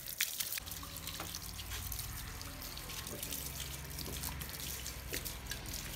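Water from a garden hose running and splashing onto a toy ride-on motorcycle, a child's bicycle and wet paving, with scattered drips and splatters. A low steady hum sits underneath from about half a second in.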